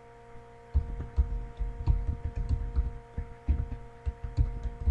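Computer keyboard typing: a fast, irregular run of short, dull key thumps starting about a second in, over a steady electrical hum.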